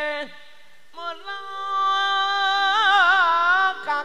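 A man singing a devotional song into a microphone in a high, woman-like voice. A held note breaks off just after the start, and a new phrase begins about a second in, with a high note that wavers widely in a heavy vibrato. Steady lower notes run underneath.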